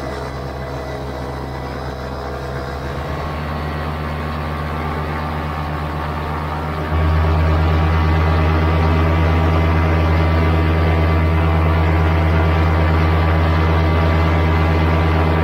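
Vittorazi Atom 80 single-cylinder two-stroke paramotor engine and propeller running steadily in flight, close up; it gets suddenly louder about seven seconds in.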